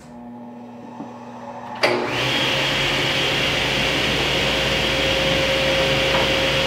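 A woodshop machine is switched on with a click about two seconds in, then runs steadily with a whine over a rush of air. Before that there is a fainter steady hum.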